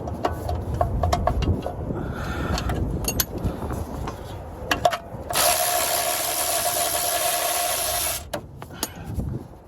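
Scattered metal clinks of tools on the transmission, then a power tool runs steadily for about three seconds and cuts off abruptly, taking out a bolt while the 4L60E transmission is being removed.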